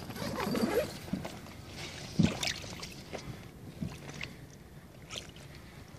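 Water sloshing and splashing, with one sharper splash about two seconds in, as a large carp is handled in the water for release.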